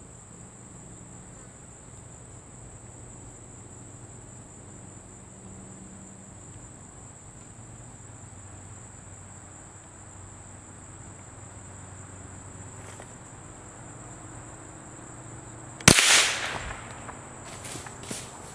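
Steady, high-pitched drone of insects; about sixteen seconds in, a single sharp crack of a .22 rifle shot, followed by a couple of seconds of rustling and crackling leaves.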